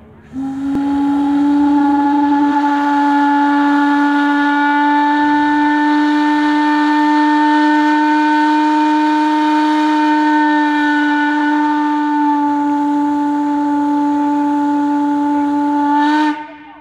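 Paddle steamer's steam whistle sounding one long blast at a steady pitch, starting abruptly and cutting off after about sixteen seconds.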